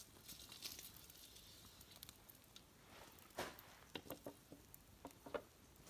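Faint, scattered crackles and pops from a campfire with a pan of fat frying over it, a few sharp clicks at irregular intervals over a quiet background.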